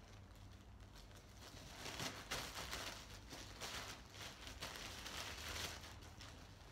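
Black plastic garbage bag rustling and crinkling as it is handled and gathered at the top, starting about two seconds in and easing off near the end.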